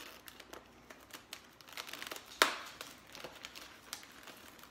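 Plastic bag of pre-cut cauliflower florets crinkling as it is handled and pulled open, in a run of small crackles with one sharp crackle about two and a half seconds in.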